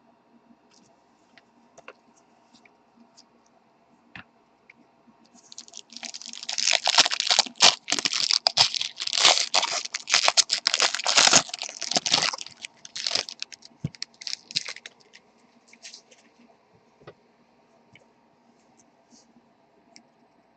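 A trading-card pack wrapper being torn open and crinkled: a dense run of tearing and crackling for about nine seconds, starting about five seconds in, with a few light clicks before and after.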